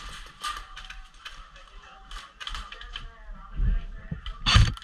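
Irregular clicks, rattles and creaks of airsoft gear and a rifle being handled close to a head-mounted camera, with two heavy thumps near the end.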